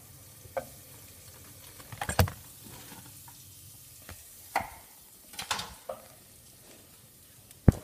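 Scattered sharp knocks and clatters of kitchen handling: a metal spoon scraping and tapping on the ice cream tub, then the phone being picked up and moved. The loudest knocks come about two seconds in and near the end.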